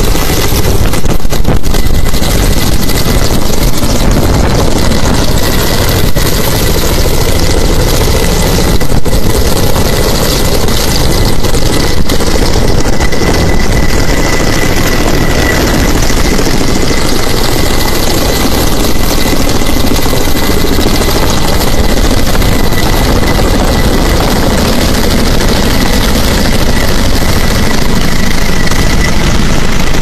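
Loud, steady aircraft engine noise with a thin, high, steady whine running through it.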